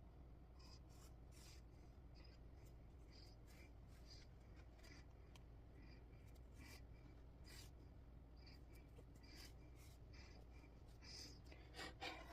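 Faint, irregular scratching and ticking of a needle and thread being pulled through cross-stitch fabric, with a slightly louder cluster of rustles near the end, over a low steady hum.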